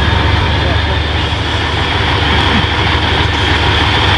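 Steady, loud drone of heavy machinery: a constant low hum with a hissing band above it, unchanging throughout.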